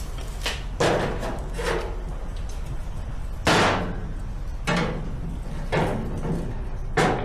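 Tools being handled and set down while measuring and marking out a cut: about six sharp knocks and clacks, the loudest about three and a half seconds in.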